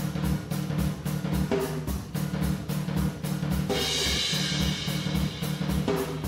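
Intro music: a steady drum-kit beat over bass notes, with a bright cymbal wash through the middle.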